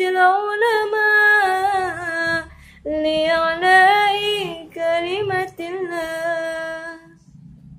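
A woman singing an Islamic sholawat solo and unaccompanied, drawing out the closing words in long, ornamented notes, with a short breath about two and a half seconds in. Her voice stops about seven seconds in.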